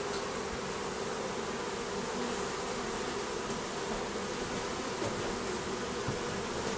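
A colony of honey bees buzzing around an opened hive: a steady, unbroken hum.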